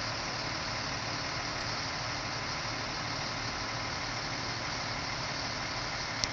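A vehicle engine idling steadily under an even hiss.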